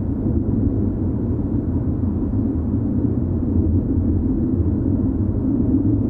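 Low, steady rumbling drone of a horror ambience sound effect, with no sharp hits or changes.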